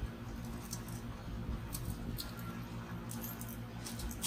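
Light scattered clicks and rustles of hands handling Kapton tape inside an LCD resin printer's open base, over a steady low hum.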